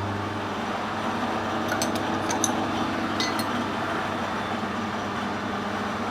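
Steady machine-shop hum with a few light metallic clinks, as of steel parts being handled on the shaft, around two and three seconds in.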